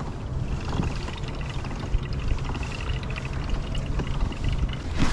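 A boat's motor humming steadily with water noise, and a faint rapid ticking higher up through most of it.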